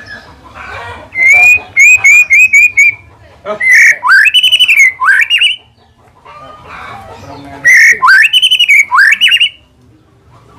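White-rumped shama (murai batu) singing loud, clear whistled phrases. Each phrase opens with a quick run of repeated notes and goes on into rising, swooping whistles. The phrase comes twice.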